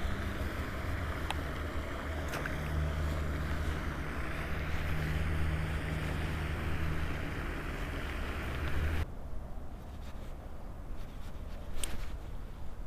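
Steady wind rumble and rush on the microphone that drops away abruptly about nine seconds in, leaving a quieter outdoor background with a few faint clicks.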